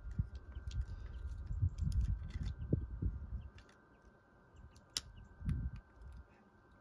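Irregular low rumbling on the microphone, heaviest in the first three seconds and again briefly near the end, with a few scattered sharp clicks, one louder about five seconds in.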